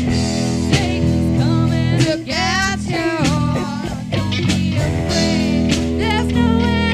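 Loose, improvised rock jam: electric guitar and held low notes, with wavering high lines gliding up and down over them from about a second and a half in.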